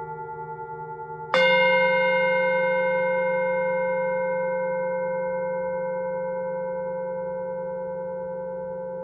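Singing bowl struck once about a second and a half in, ringing with several overtones that fade slowly. Before the strike, the previous ring is dying away with a pulsing wobble.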